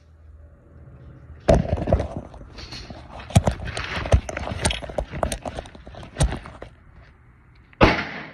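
Glock pistol firing a string of shots in an echoing indoor range: about five loud shots over some six seconds, with fainter cracks between them.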